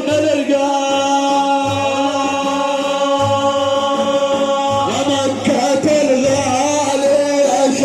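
Men's voices singing a long held note of a religious praise chant (manqaba), the note sustained for about four seconds before the melody moves on.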